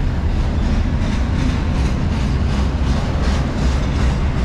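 Double-stack intermodal freight train rolling past slowly, about 10 to 15 miles an hour: a steady low rumble of the well cars with repeated wheel clicks over the rail joints.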